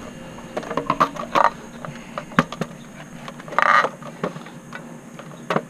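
Scattered light clicks and knocks with a few short squeaks and creaks: tools and parts being handled and set down during a pickup truck oil change.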